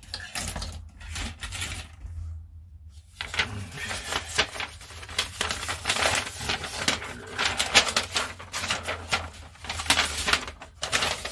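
Plastic model kit parts being handled: a run of irregular clicks and light rattling as pieces knock together, with a short pause about two seconds in.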